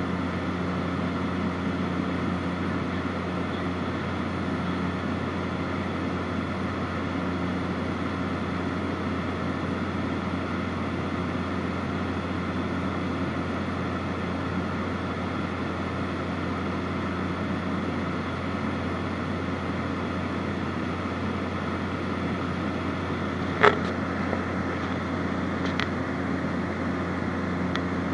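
Light aircraft's piston engine and propeller droning steadily, heard inside the cabin with air noise. A single sharp click a few seconds before the end, and a fainter one shortly after.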